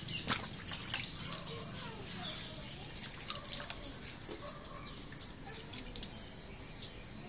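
Water splashing and dripping onto a car windshield, an irregular run of many small sharp ticks of drops hitting the glass. The glass has just been treated with a water-repellent nano sealant.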